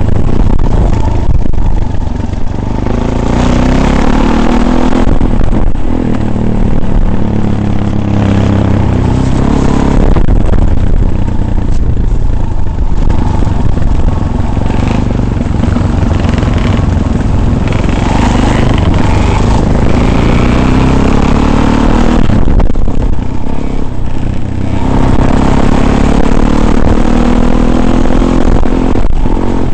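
Off-road vehicle engine running under load over rough ground, its pitch rising and falling as it accelerates and eases off several times, with steady rattling and clatter from the ride.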